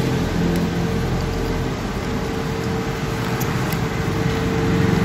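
Steady mechanical hum and background noise, with a steady mid-pitched tone running through it and a few faint clicks.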